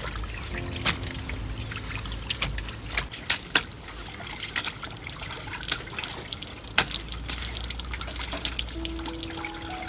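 Water trickling, with many scattered sharp clicks and knocks over a low steady hum.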